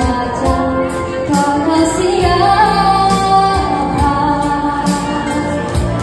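A girls' choir singing with musical accompaniment, a girl's solo voice leading through a microphone.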